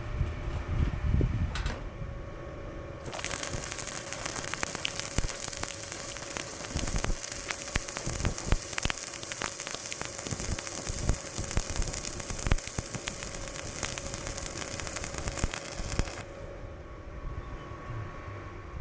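Electric arc welding: the arc's steady crackling hiss, struck about three seconds in and broken off a few seconds before the end, over a steady hum.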